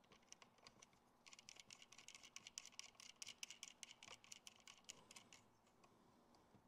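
Faint, rapid clicking and ticking of small parts being handled and fitted by hand onto a bus bar and distribution block assembly, from about a second in until about five seconds in.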